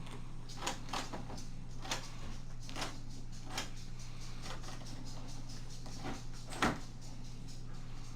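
Small metal clicks and taps from a door lever handle and its lockset being handled, about eight of them spread unevenly, the loudest a little before the end, over a steady low hum.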